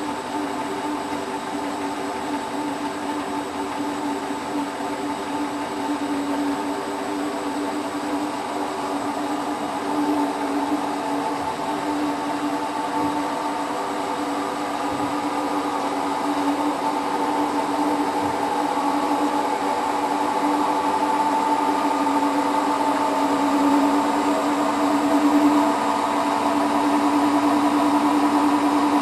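Hotpoint WT960 washing machine drum in its final high-speed spin, a steady motor and drum whine that slowly grows louder.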